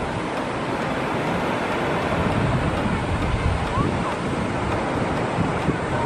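Small ocean waves breaking and washing up a flat sandy beach, with wind buffeting the microphone in a gusting low rumble.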